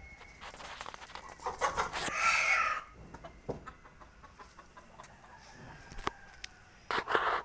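Domestic chickens clucking and calling, with a loud call about two seconds in and another short loud call near the end.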